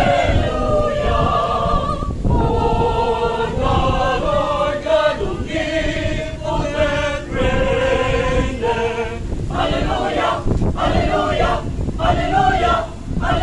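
A parish choir singing together in phrases of held notes, with short breaks between the phrases.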